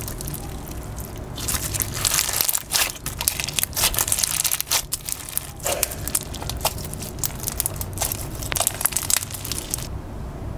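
Fishbowl slime, a clear slime packed with flat plastic fishbowl beads, being squeezed and worked by hand, giving a continuous run of crisp crunching and crackling clicks.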